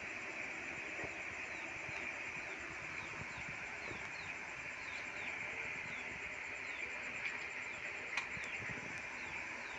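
Cooked rice being scooped with a serving spoon, a few light scrapes and taps against the pot, over a steady hiss and faint short chirps repeating in the background.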